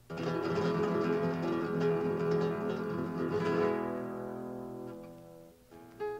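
Acoustic guitar: a full strummed chord struck at the start rings out and slowly fades, then new single plucked notes begin near the end.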